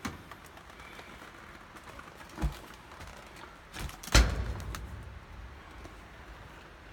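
Two knocks, about a second and a half apart, the second louder and followed by a brief low rumble.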